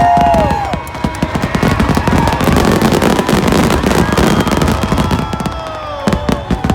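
Fireworks show finale: a rapid, dense barrage of bursts and crackling from about a second in until near the end, over the show's music, which holds a long note at the start and comes back at the end.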